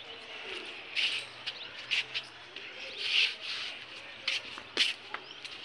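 Irregular scuffs and sharp clicks of footsteps, about one a second, with faint bird chirps.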